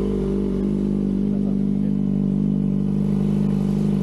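Kawasaki ZX-25R's 249 cc inline-four idling steadily through an Akrapovic exhaust, with the silencer insert taken out, which makes it louder.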